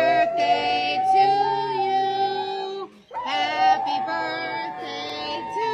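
Large dog howling in long held notes, head tipped back, in two spells with a short break about three seconds in; a second, lower held note sounds along with the howl.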